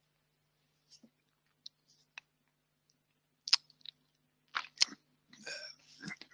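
Quiet line with a faint steady low hum, broken by a handful of short, sharp clicks scattered through; the loudest comes about three and a half seconds in, with two more close together a little before five seconds.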